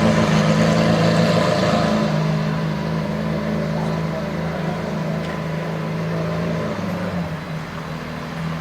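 Lamborghini Aventador LP750-4 SV's 6.5-litre V12 running at low revs with a steady low drone, slowly growing quieter.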